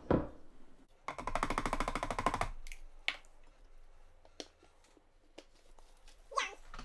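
A short, rapid rattling buzz about a second in, then scattered plastic clicks and knocks as a NutriBullet blade cap is screwed onto the blender cup and the cup is turned over.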